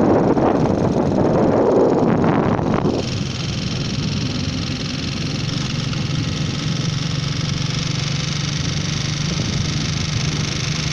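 Wind buffeting the microphone of a moving vehicle, cutting off sharply about three seconds in. A steady vehicle engine hum with road and tyre hiss follows.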